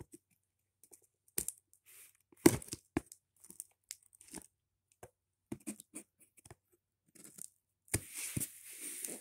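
Fingers picking and tearing at packing tape on a cardboard shipping box: scattered short scratches and rips, then a longer tearing sound near the end.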